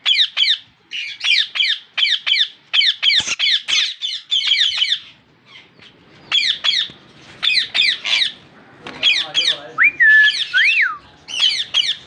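Indian ringneck parakeets giving harsh squawks in quick runs of two to four calls, run after run, with a brief lull around the middle. A clear rising-and-falling whistle sounds about ten seconds in.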